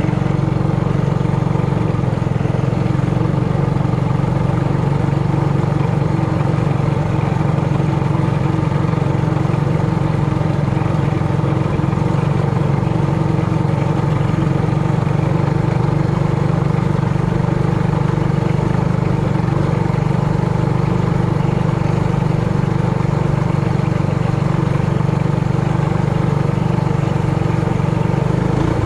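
Single-cylinder engine of a Trailmaster Hurricane 200X mini bike running at a steady, even speed while riding, with no revving up or down.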